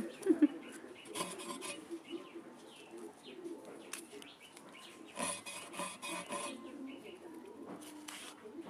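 Rasping scrapes of the skin being stripped off taro stolons (kochur loti) against a blade, in short bursts about a second in and again around five seconds in.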